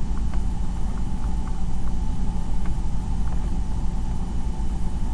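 Steady low rumbling room hum, as from running lab machinery or ventilation, with a faint steady tone above it and a few light clicks.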